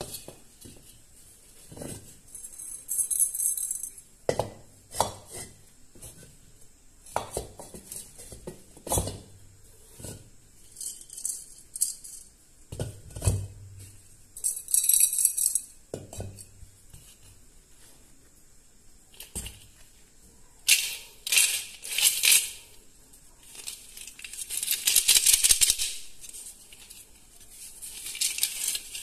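Terracotta clay piggy banks being handled and shaken: coins rattle inside them in several bursts. The longest, loudest shake comes near the end. In between are hollow knocks of the clay pots being set down and bumped together.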